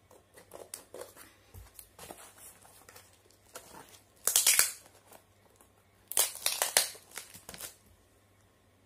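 Packaging being torn open by hand as a cardboard parcel is unpacked: small clicks and rustles of cardboard and wrapping, then two loud tearing rips, about four and six seconds in.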